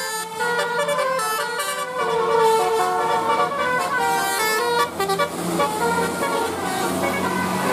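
A bus's 'telolet' musical air horn plays a quick tune of short notes that step up and down in pitch. After about five seconds it gives way to a noisier stretch with fainter tones.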